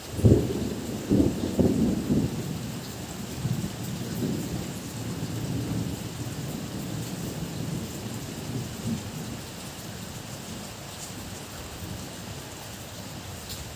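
Thunderclap: a sharp crack right at the start and a few more cracks in the first two seconds, then a deep rumble that dies away over about ten seconds. Steady heavy rain hisses throughout.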